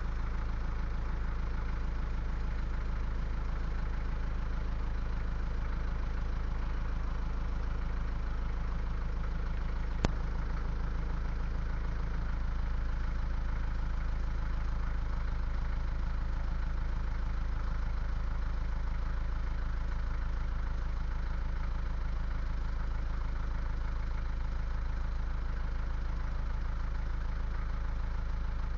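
An engine running steadily at a constant low hum with an even pulse, like heavy machinery idling. There is a single sharp click about ten seconds in.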